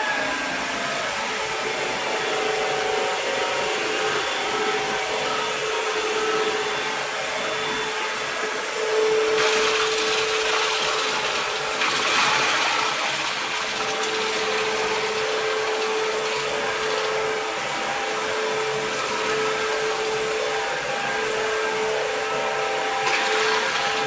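ILIFE W90 cordless upright wet-dry vacuum running in dry mode, with no water fed to the roller: a steady motor whine over rushing air. The hiss grows louder about ten and twelve seconds in, as the cleaning head passes over and sucks up cookie crumbs.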